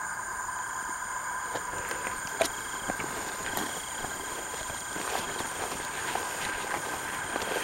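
Steady chorus of night insects trilling at several high pitches, with footsteps and rustling as someone walks through tall grass.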